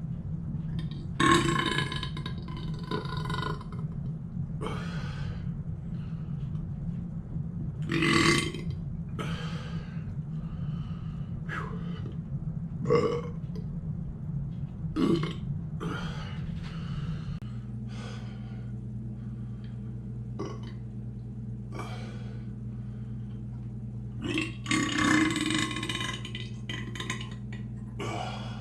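A man burping repeatedly, about a dozen burps of varying length. The loudest comes about a second in and lasts a couple of seconds, another strong one comes about eight seconds in, and a long run of them comes near the end, all over a steady low hum.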